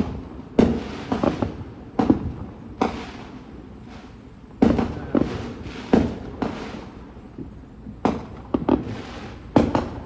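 Fireworks exploding: a dozen or so sharp bangs at irregular intervals, some coming in quick clusters, each fading away over a moment.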